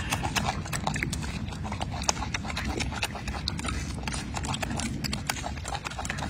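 Irregular wet clicks and smacks of a golden snub-nosed monkey chewing and picking at a soft orange fruit, heard close up over a steady low rumble.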